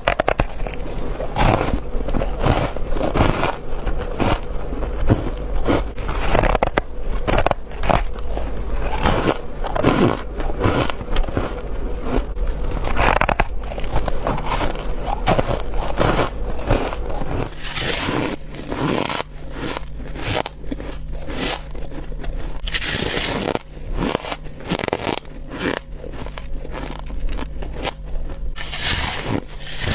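A person biting and chewing packed frost: a rapid, continuous run of squeaky, crispy crunches.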